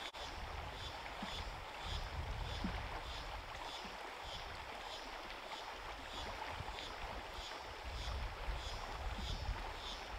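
River water rushing steadily over shallow riffles, with gusts of wind buffeting the microphone. A faint high chirping repeats about twice a second underneath.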